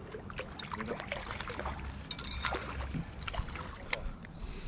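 A hooked trout splashing at the water's surface close to the bank as it is reeled in, with a run of short sharp splashes and clicks. A low steady rumble of wind on the microphone runs underneath.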